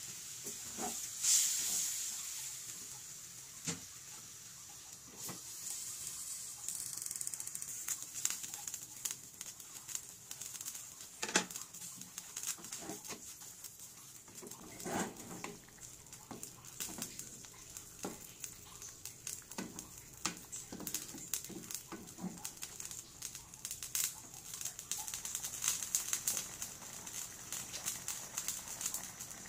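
Meat cooking in sauce in a metal pan on a gas stove, with a steady high sizzle. A wooden spoon stirring the pieces knocks and scrapes against the pan at irregular moments.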